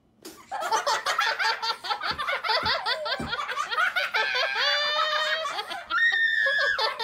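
Children laughing hard in quick fits of giggles, with high squeals in the middle and a long high-pitched shriek near the end.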